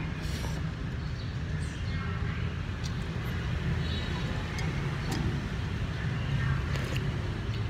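Steady low rumble of street traffic, with a slurp of noodles at the start and a few light clicks of a metal spoon and chopsticks against the bowl.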